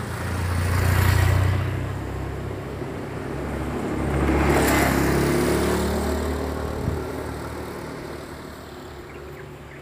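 Motor scooters passing close by on a paved path: one swells and passes about a second in, and a second passes around the middle with its engine note falling away, then the sound fades.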